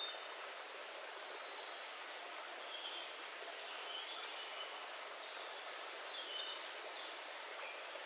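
Small rocky forest stream running and splashing in a steady rush, its low end filtered out. Several birds sing short, high notes over it throughout, in an evening chorus.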